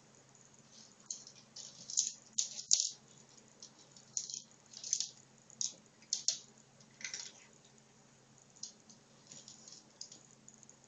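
Dry kibble rattling inside a plastic AniOne snack ball as cats nudge and roll it across a laminate floor. The rattles come in irregular bursts, loudest about two to three seconds in, and become fainter and sparser in the second half.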